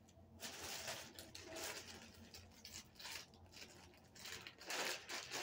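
Clear plastic clothing bag rustling and crinkling as it is handled and pulled open, with a louder rustle near the end.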